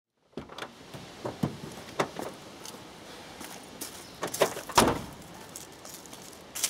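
A car door being opened and someone getting out, with scattered knocks and clicks. The door is shut hard just under five seconds in, the loudest sound, and footsteps on gravel follow.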